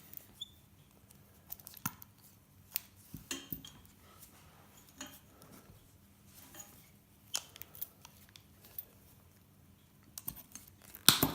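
Wire cutters snipping and pulling wire out of a metal light fitting: scattered small clicks and rustling handling noise, with a few louder sharp metallic knocks near the end.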